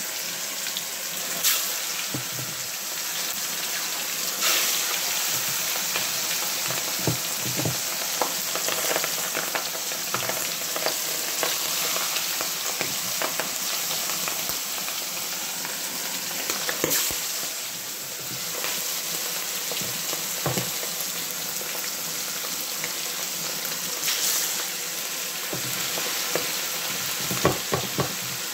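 Pork frying in hot oil in a pan, a steady sizzle with occasional sharp clicks and pops.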